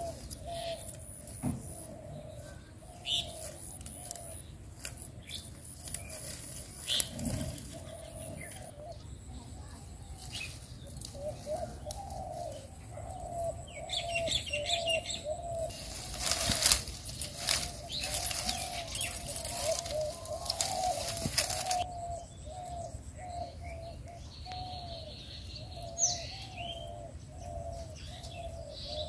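Birds calling: a long run of short, low notes repeating about one and a half times a second. A few seconds of loud, noisy rustling or flapping come in the middle, and a single high falling chirp near the end.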